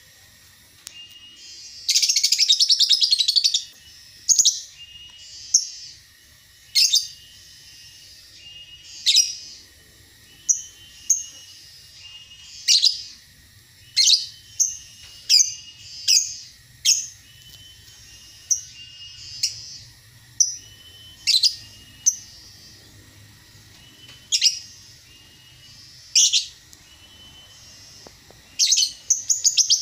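Caged songbird singing: short, sharp, high chirps every second or two, with a loud fast trill about two seconds in and another near the end.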